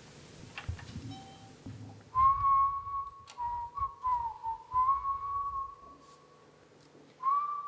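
Someone whistling long, nearly steady notes with small dips in pitch. It starts about two seconds in, breaks off briefly and resumes near the end. Soft low thuds come before it and under it.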